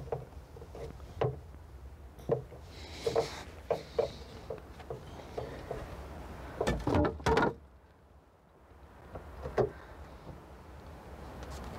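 Scattered clicks and knocks of a gas-charged trunk lift support being worked onto its mounts on a 1997 Jaguar XJ6, with a cluster of louder knocks about seven seconds in as the support goes on.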